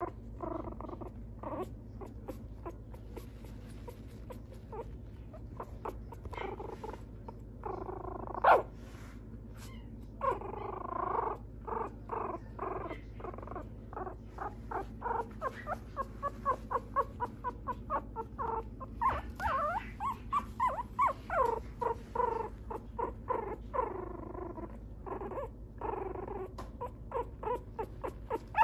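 Young mixed-breed puppy whimpering in short, high cries, scattered at first, then in a quick string of about two or three cries a second through the second half, over a low steady hum.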